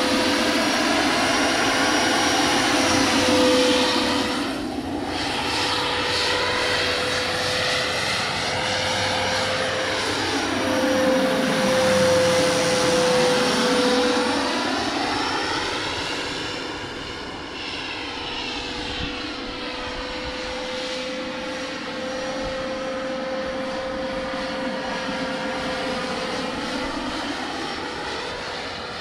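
Radio-controlled scale model helicopter flying at the field: a steady whine from its engine and rotors, swelling and sweeping in tone as it passes back and forth. It grows quieter past the middle as it moves away.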